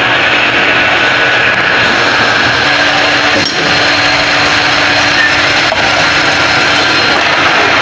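Power tool running steadily, most likely a valve seat grinding machine cutting the valve seats of a diesel cylinder head, with a couple of faint ticks.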